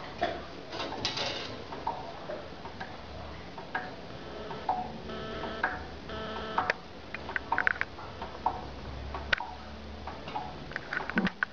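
Cats' claws clicking and tapping irregularly on metal window bars and wire mesh as a mother cat hauls her kitten up through the bars, with a cluster of sharper taps past the middle and again near the end.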